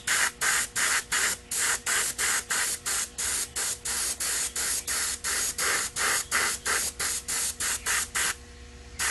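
Spray-paint can hissing in quick, even short bursts, about three a second, laying a light first coat of paint inside a clear RC car body. The bursts stop about eight seconds in, with one more near the end.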